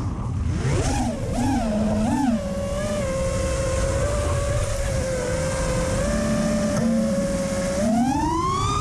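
FPV racing quadcopter's brushless motors and propellers whining, recorded on the drone's own camera: three quick throttle punches swing the pitch up and down, it holds a steady hover-cruise note, then climbs steeply in pitch near the end as the throttle is pushed up. The motors are worn, by the pilot's account.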